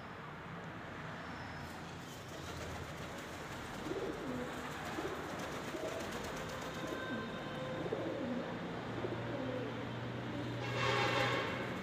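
Pigeons cooing, a series of low, repeated coos, with a brief louder sound near the end.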